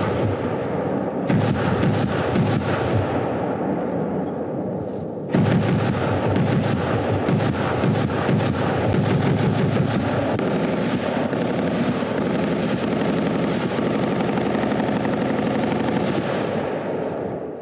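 A BTR-3E's turret-mounted 30 mm automatic cannon firing long bursts of rapid, continuous shots, louder from about five seconds in. This is the live-fire acceptance run that every new vehicle goes through.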